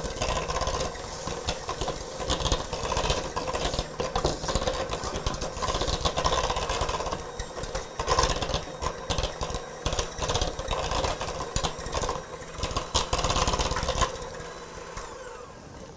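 Electric mixer running steadily, beating butter, brown sugar, molasses, eggs and vanilla into a creamy batter, with its beaters clattering against the bowl. It winds down and stops about fourteen seconds in.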